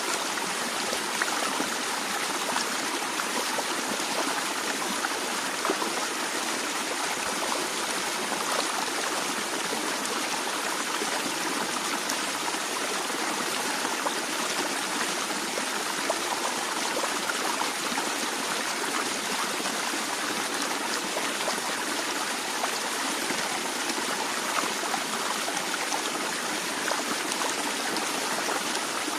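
Natural stream of water flowing gently and steadily: an even, unbroken rush of moving water.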